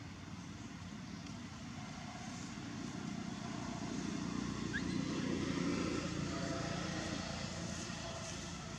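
A motor vehicle's engine passing: a low rumble that swells to its loudest a little past halfway and then eases off slightly.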